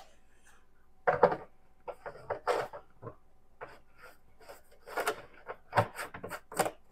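Lids being fitted and screwed onto a hard plastic 10-litre UPWOIGH camping water container: a series of irregular clicks, knocks and rattles of plastic on plastic.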